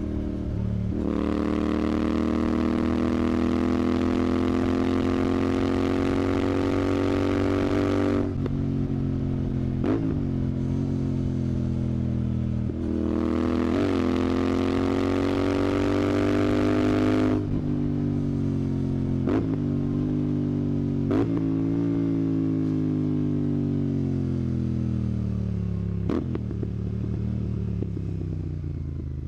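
Royal Enfield Continental GT 650's parallel-twin engine through a Red Rooster aftermarket exhaust, pulling up through the revs twice. The throttle is then closed and the pitch falls as the bike slows, with a few sharp cracks along the way.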